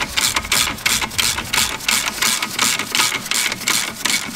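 Ratchet wrench winding off the threaded spindle of a Gedore McPherson coil-spring compressor, an even run of ratcheting rasps about four a second as the spring tension is released.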